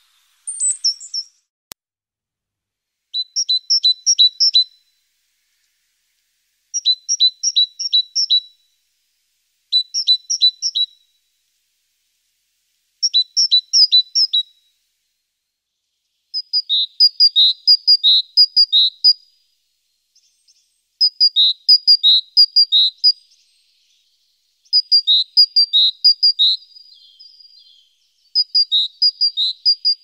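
A small songbird singing: a short phrase of quick, high notes repeated again and again, with short pauses between phrases.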